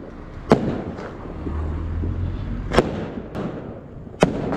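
Firecrackers going off: three loud sharp single bangs, about half a second in, near three seconds and just after four seconds, with a couple of fainter pops between them. A low rumble comes in for about a second in the middle.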